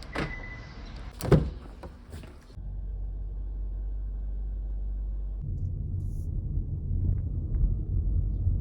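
Steady low rumble of a car on the move, after two sharp knocks in the first seconds; the rumble grows louder about five seconds in.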